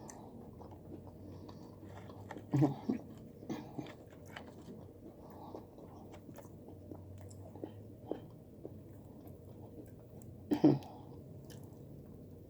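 A person chewing fried chicken close to the microphone, with many small mouth clicks and two louder bites, one about two and a half seconds in and one near the end.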